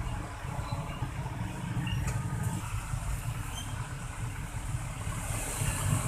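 Steady low rumble of vehicle engines with road traffic noise.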